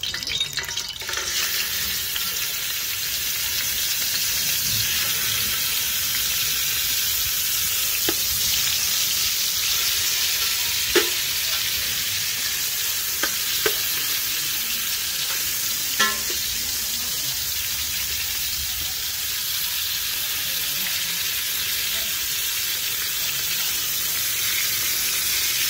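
Whole fish frying in hot oil in a stainless steel pot: a steady sizzle that fills out about a second in. A metal ladle knocks lightly against the pot four times.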